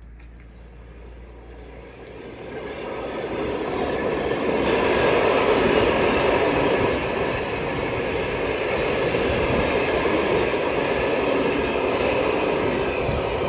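Passenger train passing close by, the rolling noise of its carriages on the rails building over the first few seconds and then running steadily loud.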